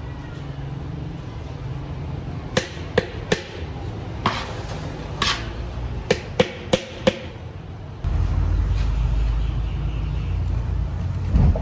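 About nine sharp knocks at uneven intervals over a steady low rumble. The rumble gets suddenly louder about eight seconds in.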